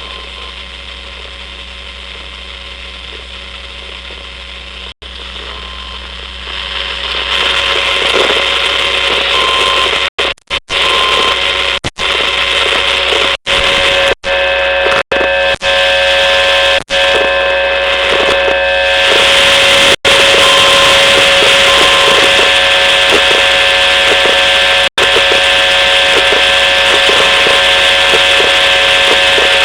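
Electronic buzz and whine from a laptop hard drive: a steady hiss with several fixed tones over it. It gets louder about seven seconds in and again around twenty seconds, with a string of brief cut-outs between about ten and seventeen seconds.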